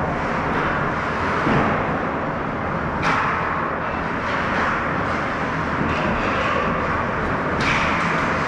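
Ice hockey rink sound during play: a steady noisy wash of skates on ice and arena background, broken by a sudden louder burst about three seconds in and another near the end.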